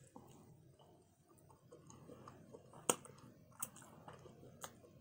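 Quiet, close-miked chewing and mouth sounds of someone eating saucy barbecue rib tips, with a few sharp clicks, the loudest about three seconds in.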